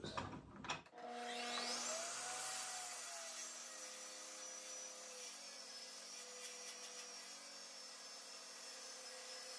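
Table saw motor switching on about a second in, its whine rising quickly as it spins up, then running steadily at speed.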